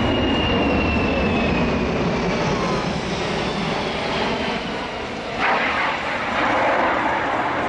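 C-17 Globemaster III's four turbofan engines flying past: a steady jet rumble with a thin whine that falls in pitch over the first few seconds. A louder rushing noise comes in suddenly about five seconds in.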